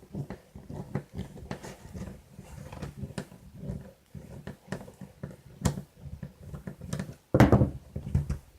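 Small plastic and metal parts of an RC truck's rear hub and axle clicking and knocking as they are pried apart by hand, with a louder knock near the end.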